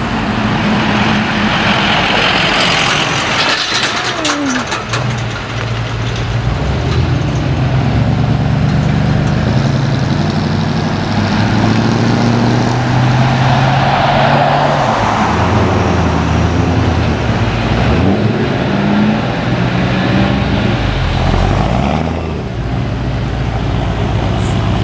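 Engines and exhausts of a procession of Ford Mustangs and a Ford GT passing one after another at low speed. The engine note swells and fades as each car goes by, rising and falling in pitch as they pull away.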